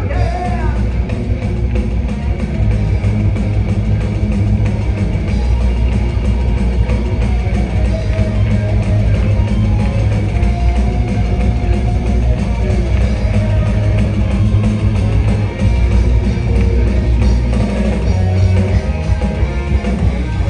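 Live band playing loud rock music on electric guitar, bass guitar and drum kit.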